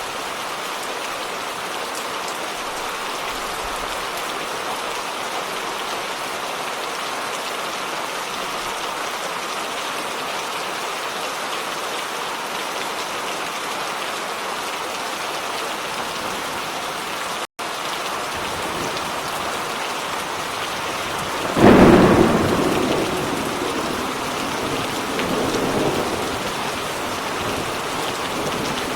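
Steady rain falling, with a brief split-second gap in the sound just past the middle. About three-quarters of the way in a clap of thunder breaks suddenly and rumbles away over several seconds, with a second, lower swell of rumble after it.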